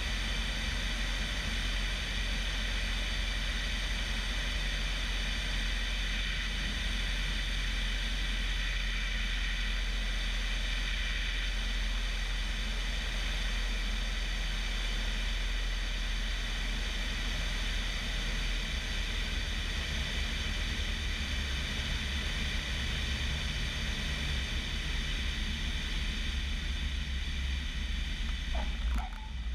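Light aircraft's 150 hp Lycoming engine and propeller running, with heavy wind rush over a camera on the wing strut, through the approach and landing of a Bellanca Decathlon. The low engine rumble changes about two-thirds of the way through, and the sound dips briefly just before the end.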